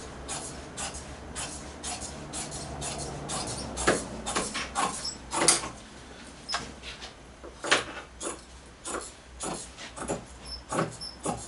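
Upholstery fabric being cut with scissors: a run of short, irregular snips, about two a second, the sharpest about halfway through.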